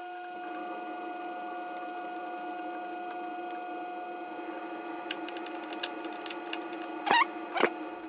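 Cordless drill motor running at a steady pitch while it drives a screw. About five seconds in, clicks set in, and near the end come two loud, short squeaks.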